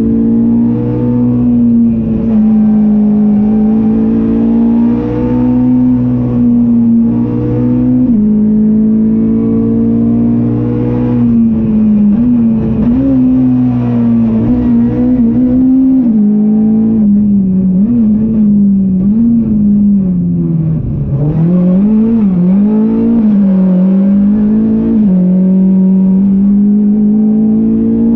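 Ford Fiesta R200 rally car engine heard from inside the cabin, held at high revs at full throttle with a few quick gear changes. Midway the revs drop and jump again and again through downshifts and braking for a bend, then the engine pulls hard again, the revs climbing steadily near the end.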